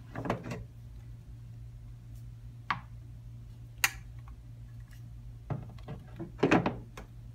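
Mannequin arm and body parts being handled, giving a few scattered light clicks and knocks, the loudest cluster near the end, over a low steady hum.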